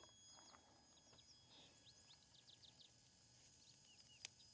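Near silence outdoors, with many faint, short high chirps scattered throughout and a single sharp click about four seconds in.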